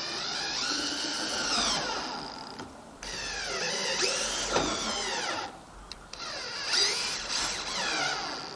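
Cordless drill driving screws through metal ridge caps, in three runs: the motor's pitch rises, then drops as each screw bites and seats.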